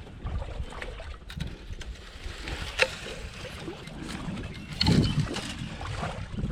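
Pond water sloshing around someone wading in waders, with handling noise and a sharp knock about three seconds in.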